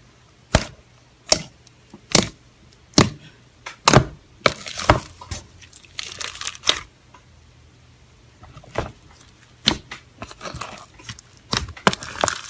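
Thick slime studded with sprinkles and small beads being pressed and poked by fingers, giving sharp popping clicks, at first about one a second, then a denser run of crackling. After a short lull the pops and crackles start again.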